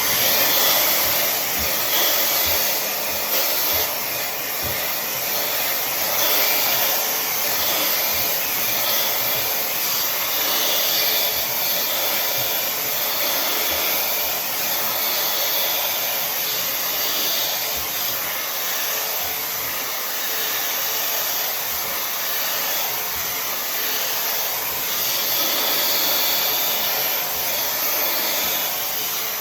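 Tymo Air Hype hair dryer switching on and blowing steadily.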